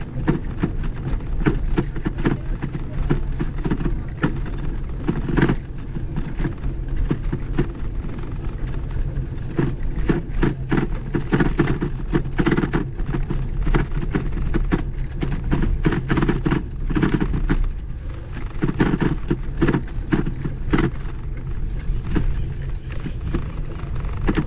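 Bicycle with a front basket rolling over a brick-paver path: the frame and basket rattle in a rapid, irregular run of clicks and knocks over a steady low rumble.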